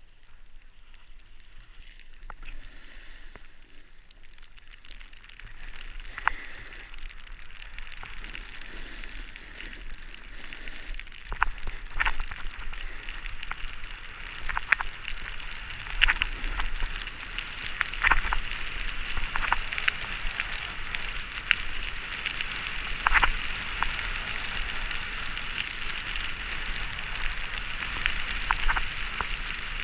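A snowboard sliding down a snowy ski run: a continuous hiss of the base and edges over the snow, rising over the first several seconds as speed builds, with frequent short, sharp scrapes.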